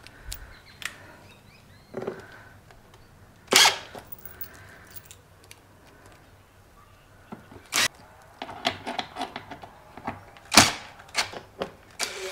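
Scattered sharp knocks and clicks, with a quick run of light clicks about three quarters of the way through, as screws and a cordless drill are handled and set into the screw holes of a plastic motorcycle airbox cover.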